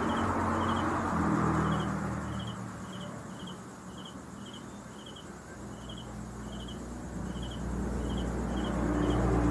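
A chirping insect calling in short, evenly spaced chirps, about two a second. Under it runs a low hum that fades a couple of seconds in and swells again near the end.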